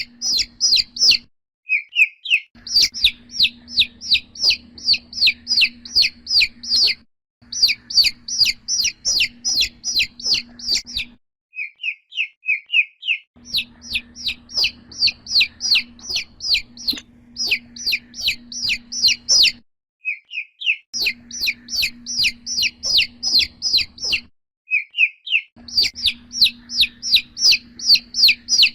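Domestic chick peeping loudly: short, high, falling peeps at about three a second, in bouts of several seconds broken by short silences. A few softer, lower peeps open some bouts.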